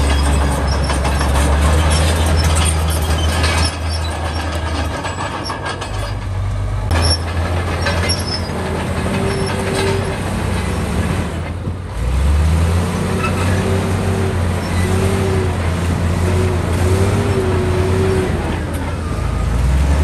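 Heavy diesel engines of earthmoving machinery running, their low note shifting several times as the load changes. A higher wavering whine comes and goes in the second half.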